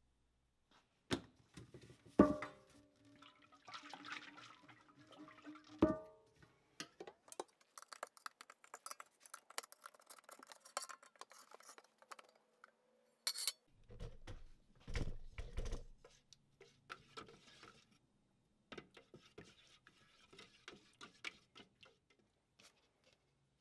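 Metal gallon paint can being opened and handled: sharp metallic knocks, two of them loud with a short ringing tone about two and six seconds in, then a long run of small clicks and knocks with a few dull thumps.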